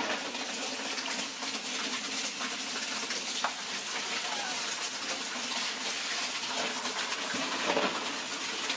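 Water from a hose pouring steadily into a large stainless-steel basin, splashing onto the water already in it as the basin fills.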